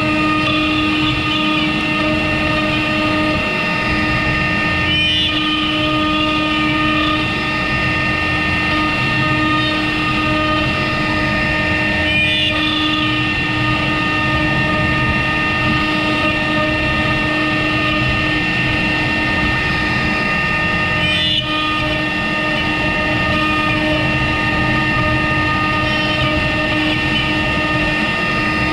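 CNC router spindle running with a steady high whine over cutting noise as a 90-degree V-bit carves letters into pine, with brief dips a few times.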